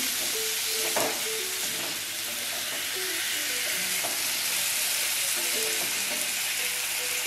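Thin potato slices sizzling in hot oil in a kadhai, stirred and turned with a spatula scraping across the pan.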